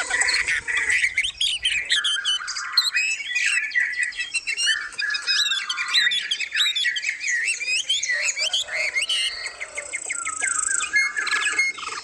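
Several caged songbirds chirping and calling at once, a dense mix of quick, overlapping calls. A lower, drawn-out call sliding down in pitch runs through it about eight seconds in.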